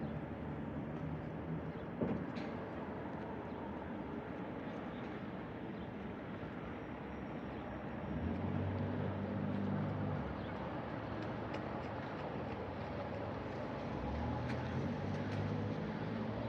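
Steady outdoor background noise with the low hum of an engine that grows louder twice for a couple of seconds, and a single sharp click about two seconds in.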